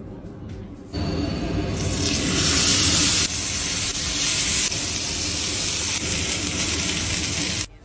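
Chicken breasts sizzling as they fry in hot oil in a frying pan. The sizzle starts about a second in and stops suddenly near the end.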